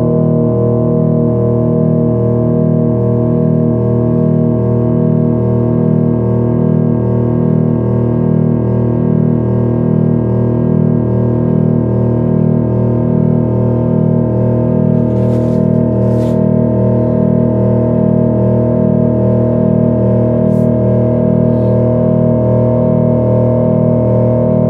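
Modular synthesizer playing a loud, dense drone of many held tones, with a regular low throbbing pulse underneath.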